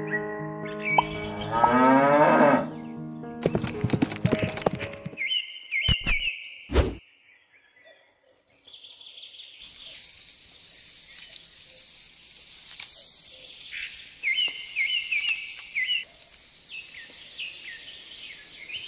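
A cow mooing, a long call with pitch glides, loudest about two seconds in. Later comes a run of high bird chirps over a faint hiss.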